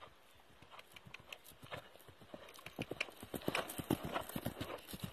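Hoofbeats of a ridden young mare on grass, growing louder as she approaches and loudest as she passes close near the end.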